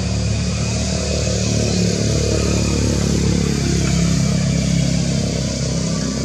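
An engine running steadily, getting a little louder in the middle and easing off again.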